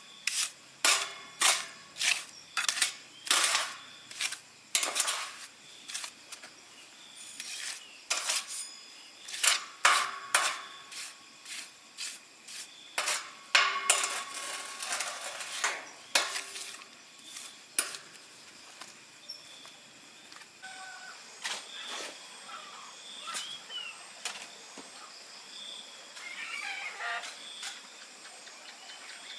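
Hand-work noise: a run of short, sharp strokes about once a second, some longer and rasping, thinning out after about eighteen seconds. Birds chirp faintly near the end.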